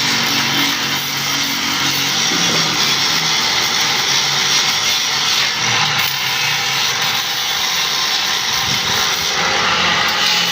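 A power tool running steadily on metalwork, a loud even hiss with a faint low hum beneath.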